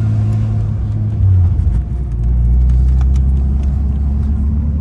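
Toyota 2JZ straight-six swapped into a Nissan S14, running with a loud, deep drone heard from inside the car. About a second and a half in there is a short surge, then the engine note drops lower and holds.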